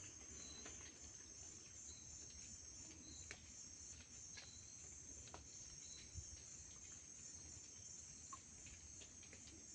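Steady high-pitched insect chorus, crickets trilling continuously, with a few faint clicks here and there.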